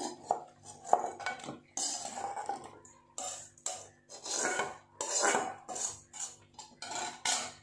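Metal ladle scraping and clanking against metal cookware in a run of short, irregular strokes, as cooked food is spooned from one pot into another.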